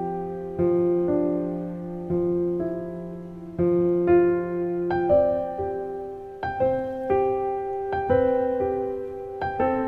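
Background piano music: slow notes struck about once a second, each ringing and fading, over a held low note for the first half.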